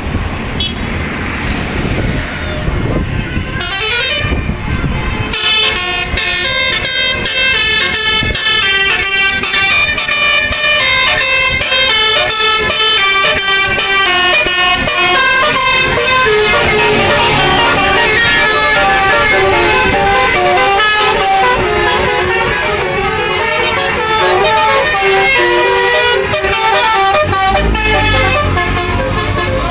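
Bus 'telolet basuri' musical horn playing a fast melody of short stepping notes for over twenty seconds, starting about five seconds in. A low engine rumble comes in near the end.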